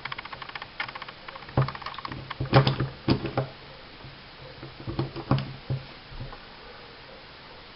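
Metal clicks and taps from a small 1911-style 9mm pistol's parts being handled and fitted together during reassembly, in irregular clusters, dying away after about five and a half seconds.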